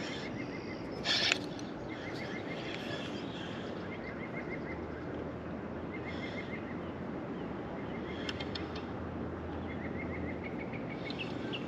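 Outdoor ambience: a bird repeating short runs of quick chirps over a steady background hiss, with a brief louder burst about a second in.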